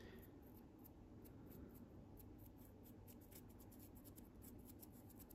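Near silence: room tone with faint, very high ticks.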